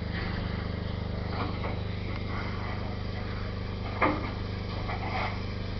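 Steady mechanical hum from a steam tank engine standing at a platform, with a short sharp knock about four seconds in.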